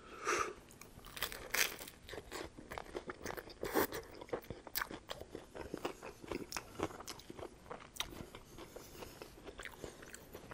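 Close-miked chewing and crunching of a ranch-dipped BLT sandwich on toasted bread, with irregular crisp crunches and wet mouth sounds; the loudest crunches come about a second and a half and about four seconds in.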